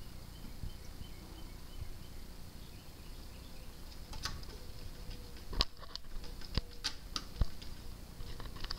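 A cat's paw tapping and scraping against the glass of a fish tank: scattered light taps, about half a dozen, starting about four seconds in.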